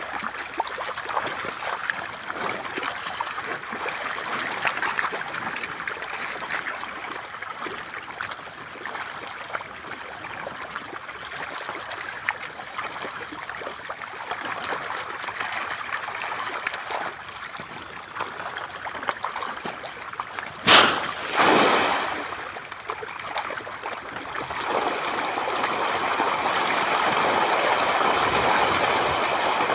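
A crowd of fish thrashing and splashing in shallow muddy water at the bank, a continuous churning. About two-thirds of the way in there is one sudden loud hit with a short tail, and near the end the splashing grows louder and denser as more fish crowd in.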